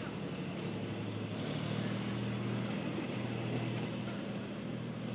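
Thai passenger train carriages rolling past on the rails: a steady rumble of wheels and running gear with a low hum beneath it.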